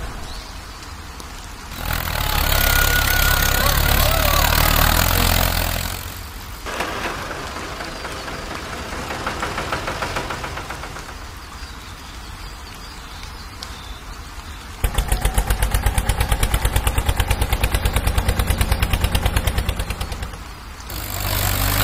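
Diesel engine sounds for the toy tractor and backhoe loader, changing every few seconds: a loud steady rumble with a hiss, then quieter running, then fast, regular chugging for the last several seconds.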